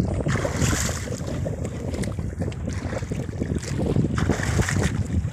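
Wind buffeting the microphone, over choppy sea water slapping and lapping against a small outrigger fishing boat.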